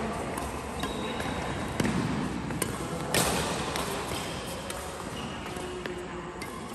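Badminton rally: rackets striking the shuttlecock in a string of sharp hits about a second apart, the loudest about three seconds in, each ringing on in the big hall.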